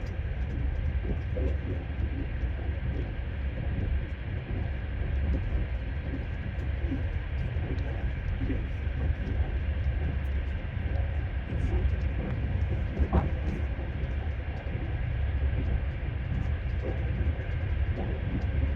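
Passenger train running, heard from inside the carriage: a steady low rumble with the wheels knocking irregularly over the rails. One sharper knock comes about two-thirds of the way through.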